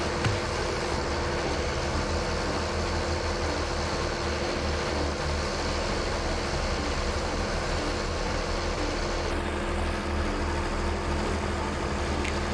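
Heavy farm machinery engine running steadily at a constant speed, a continuous even drone.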